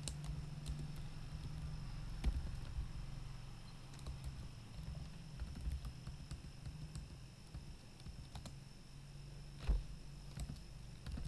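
Typing on a computer keyboard: scattered key clicks, then a louder single click near the end, over a steady low hum.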